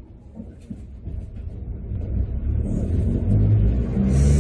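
Sapporo streetcar pulling away from a stop: a low rumble from the tram builds steadily as it gathers speed, with a steady hum joining in about three seconds in. A short hiss comes near the end.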